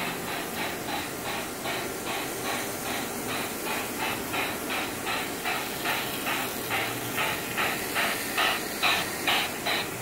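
Tyco Sound of Steam box car making its rhythmic hissing chug, about four chuffs a second, in imitation of a steam locomotive's exhaust. It grows louder over the last couple of seconds as the model train passes close.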